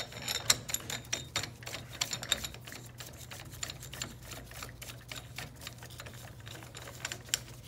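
Irregular metal-on-metal clicking and clattering of a steel bearing puller and splitter plate being fitted and adjusted by hand around the gear and bearing on a CVT primary pulley shaft. The clicks come thick and fast for the first couple of seconds, then sparser, over a steady low hum.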